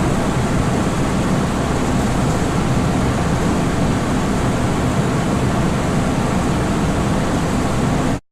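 Motor running with a steady low, airy hum, cutting off abruptly near the end.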